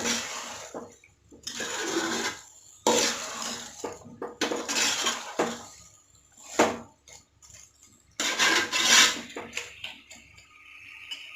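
Metal spoon stirring chicken in masala and curd in a cooking pot, with irregular scraping and clattering strokes against the pot. A steady hiss starts near the end.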